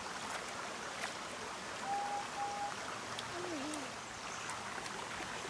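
Steady rush of running water from a small bush stream and waterfall. Two short beeps come about two seconds in.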